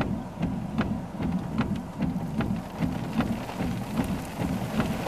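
Raindrops tapping on a moving car, sharp and irregular, over a low road and engine drone that pulses about two or three times a second.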